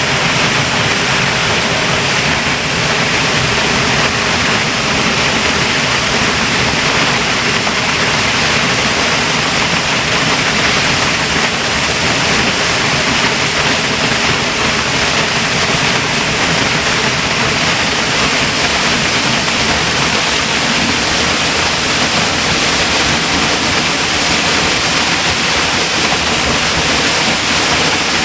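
Waterfall in spate after heavy overnight rain: a loud, steady rush of falling water with no break.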